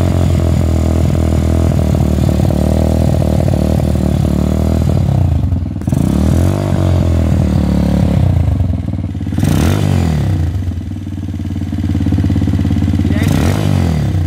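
Four-stroke motorcycle engine running on two-stroke petrol-oil premix with extra oil, idling steadily and then revved up and back down three times.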